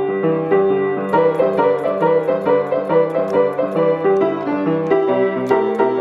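Grand piano played in a blues and boogie-woogie style, a driving left-hand bass figure under right-hand chords; the uploader says this new piano needs some tuning. A crisp high ticking keeps time from about a second in.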